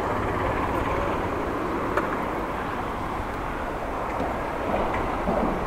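Steady city street noise of traffic heard from a moving bicycle, with a few brief clicks.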